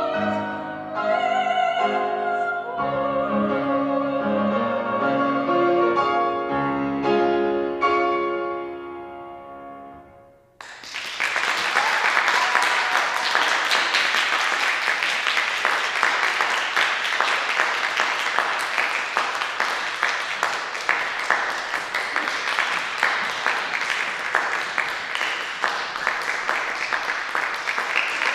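A female classical singer with grand piano finishes a song with vibrato, and the music dies away about ten seconds in. Audience applause then breaks out suddenly and continues steadily.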